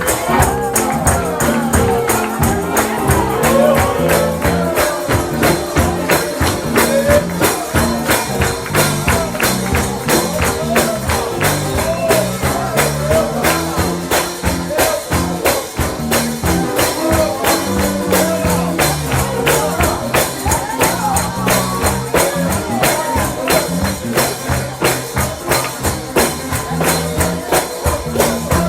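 Gospel music with a tambourine keeping a fast, steady beat over the instruments.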